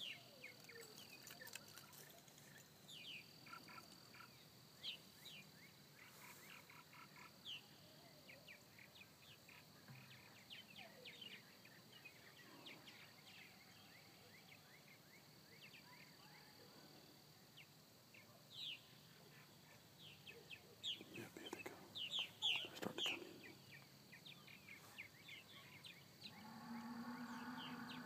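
Purple martins calling faintly from a flock circling overhead: scattered short, falling chirps, thickest about three-quarters of the way through. Near the end a low droning sound lasts about two seconds.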